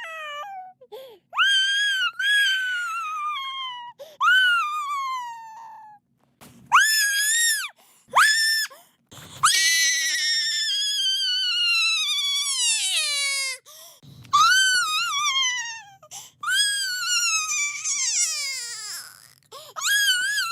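Baby crying sound effect: a run of very high-pitched wailing cries that mostly slide down in pitch, some short and one held for about four seconds, with brief breaths between them.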